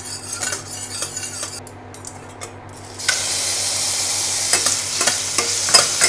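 A spatula scrapes lightly in a stainless steel pan of oil. About three seconds in, prawns rubbed with salt and turmeric drop into the hot oil and start sizzling loudly, with the spatula clacking against the pan as they are stirred.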